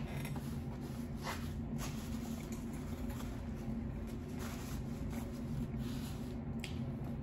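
Faint eating sounds over a steady low hum: a few soft clicks and smacks from chewing and handling food.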